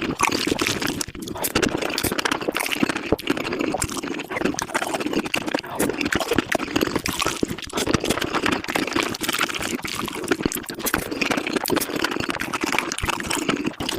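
Eating sounds of spicy tofu soup sped up fivefold: rapid wet slurping and chewing, crowded into a continuous chatter of mouth noises.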